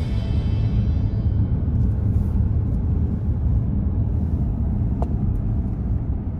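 Steady low rumble of a car driving along a paved road, heard from inside the cabin: road and engine noise.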